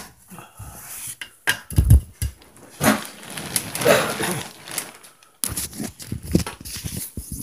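Irregular knocks and thuds mixed with rustling, the heaviest a low thud about two seconds in.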